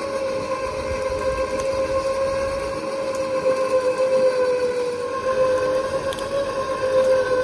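Winch motor running under load, pulling the stuck Suburban through a snatch block: a steady high whine with overtones that sags slightly in pitch about halfway through.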